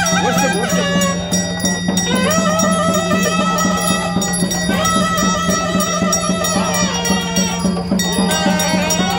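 Traditional Indian music: a melody that holds and glides between notes over a steady drone, with a regular drum beat.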